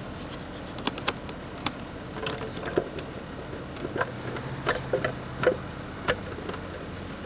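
Plastic screws being tightened by hand with a screwdriver into a Hayward Dyna-Skim skimmer's plastic faceplate and gasket. The sound is a string of irregular small clicks and ticks from the driver and screws working against the plastic.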